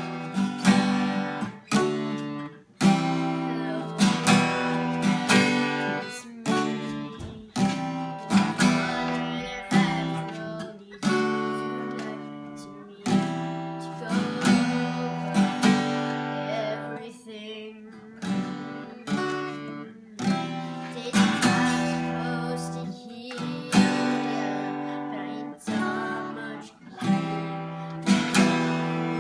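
Acoustic guitar strumming chords, with a fresh strum about every second.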